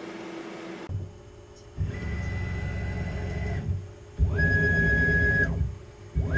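Tormach 440 CNC mill running its program: its motors whine at a steady high pitch in stretches of one to two seconds, over a low rumble. Twice the whine climbs quickly to pitch and then falls away as a move ends.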